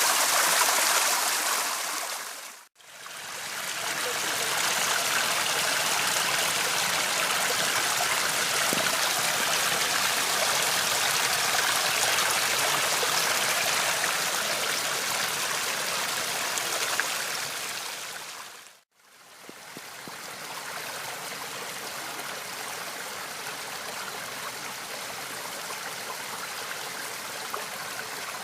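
Running water from garden fountains and water channels, a steady rushing and splashing. It fades out to silence twice, about three seconds in and again near the twenty-second mark, each time coming back as a new take, and the last take is quieter.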